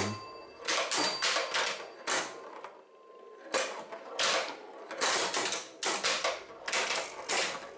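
Bally 4 Queens electromechanical pinball machine in play: bursts of rapid mechanical clicking and clattering from its relays, stepping units and score reels as the ball scores, about seven bursts with short quiet gaps between them.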